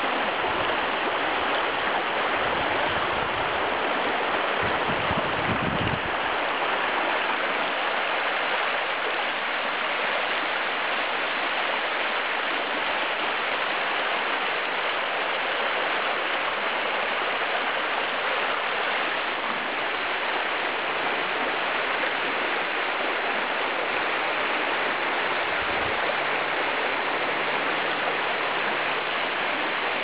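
The Katun River's shallow, fast water rushing and splashing over a stony riffle: a steady, even rush. There is some low rumbling in the first six seconds.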